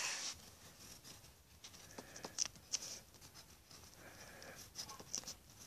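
Faint scratching of a drawing tool on paper: short strokes a few seconds apart, with a few light clicks between them.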